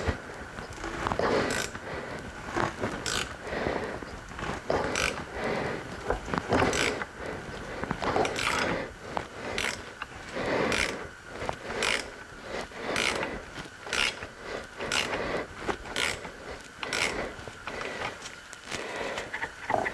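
Hand ratchet wrench being worked back and forth, a short burst of ratchet clicking on each stroke, repeating roughly once or twice a second, as fasteners are undone during an engine teardown.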